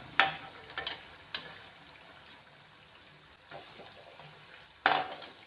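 A cooking utensil clinks against the frying pan a few times, sharpest just after the start and again near the end, over a faint steady sizzle of chana-dal bara patties frying in oil as the cooked ones are lifted out.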